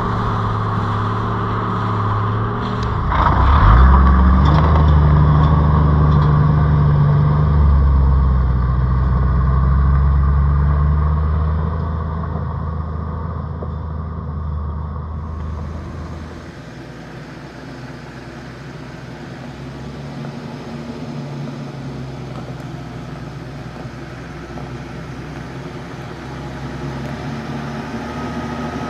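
Toyota LandCruiser 80 Series engine pulling the vehicle along a rutted dirt track. Its low rumble surges louder a few seconds in and stays heavy for several seconds, then the engine is heard from further off, growing louder near the end as the vehicle climbs toward the listener.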